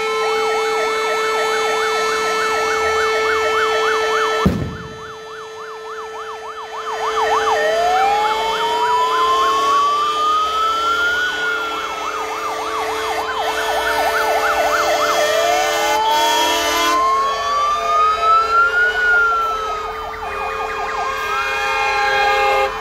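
Several fire engines' sirens sounding together: fast yelping sweeps overlaid by slow wails that rise and fall twice, over a steady held horn tone. A single sharp crack about four and a half seconds in, after which it is briefly quieter.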